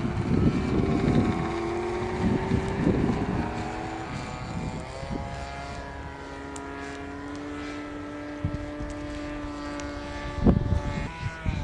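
Radio-controlled model airplane's engine and propeller droning in flight, the pitch rising and falling several times as it flies. Low rumbling gusts of noise near the start and again about ten seconds in.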